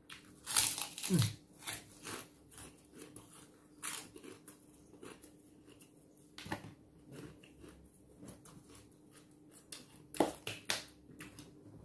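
A crispy white cracker is bitten off with loud crunches in the first second or so. Softer crunching chews follow for several seconds. Near the end come a few sharp pats as the hands are brought together.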